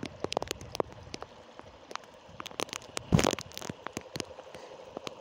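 Heavy rain falling, with individual drops ticking sharply and irregularly close to the microphone. A louder thump about three seconds in.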